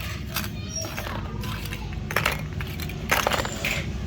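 Factory machinery humming steadily, with irregular clatter and clicks of small hard parts knocking together, four or five bursts.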